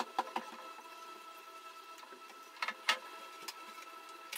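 Floor cleaning on tiles: a few sharp clicks and knocks, a pair just after the start and a louder pair near three seconds in, over a steady mechanical hum.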